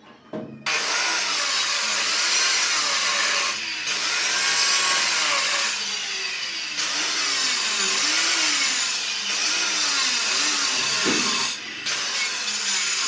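Handheld electric cutter with a cutting disc grinding through a ceramic floor tile. Its motor pitch wavers as the blade bites, and the noise dips briefly about four times as the cut eases off and resumes.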